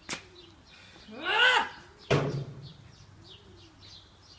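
Small birds chirp and pigeons coo in the background. About a second in, a person gives one loud drawn-out cry that rises and falls, and a sharp thump follows just after.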